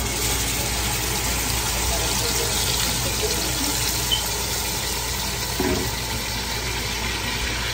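Red chile sauce poured through a mesh strainer into a pot of hot oil and frying onion, sizzling steadily.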